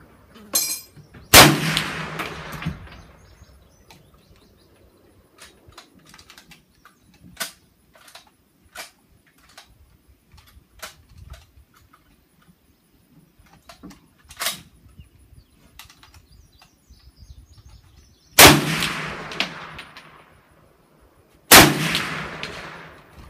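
Three rifle shots, each with a long echoing tail: one about a second and a half in, then two about three seconds apart near the end. In between, light metallic clicks and clinks.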